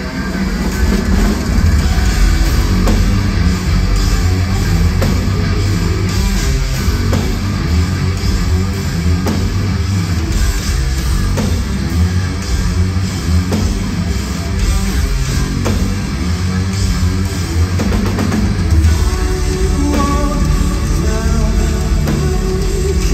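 Live progressive metal band playing loud: distorted guitar, bass, keyboards and drum kit, heard from among the audience. A lead voice comes in singing about twenty seconds in.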